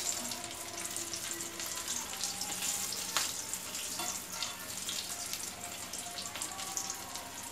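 Oil sizzling steadily in a kadai as potato-and-vegetable balls deep-fry and brown, with a few sharper crackles, one about three seconds in.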